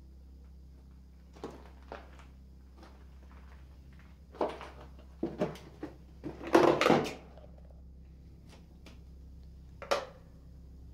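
Scattered knocks and clatters in a small room: two light ones early, a few more from about four seconds in, the loudest cluster about six to seven seconds in, and a last sharp knock near the end.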